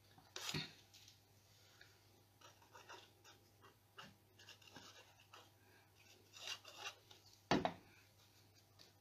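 Faint handling of card and paper on a cutting mat: small rustles and scrapes as pieces are picked up and glued. There is a knock about half a second in, and a louder one near the end as the glue bottle is set down on the mat.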